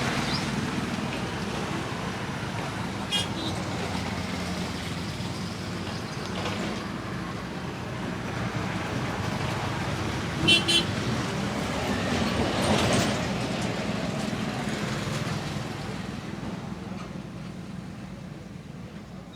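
Roadside traffic: a steady rumble of passing vehicles, with a short horn toot about three seconds in and a quick double toot about ten seconds in. A vehicle passes louder around thirteen seconds, then the traffic noise eases off.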